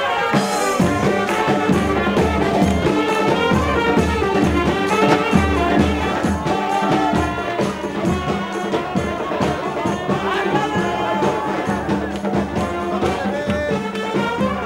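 Brass street band playing: sousaphone, saxophone and other horns over a steady bass-drum beat with cymbal.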